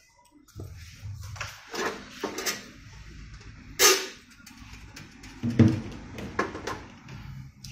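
Several short knocks and clatters of hard equipment being handled, the loudest a sharp knock about four seconds in, over a low background rumble.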